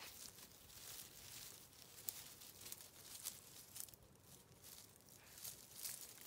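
Faint, irregular rustling and crackling of dry leaf litter and ivy as a kitten and a dog move through woodland undergrowth.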